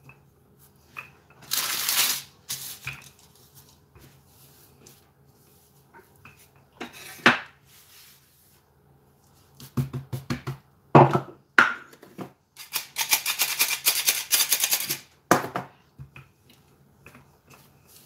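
Wooden rolling pin rolling out cookie dough on baking paper, rustling and scraping in short bursts, with a longer run of quick strokes near the end.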